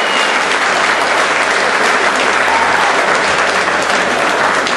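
Crowd applauding steadily after a fight result is announced.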